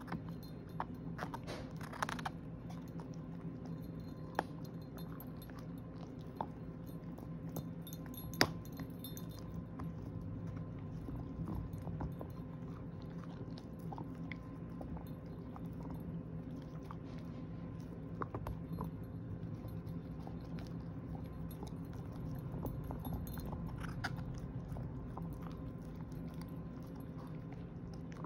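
A dog gnawing and chewing on a hard 'everlasting' chew treat, a steady grinding of teeth on the treat broken by scattered sharp clicks and crunches.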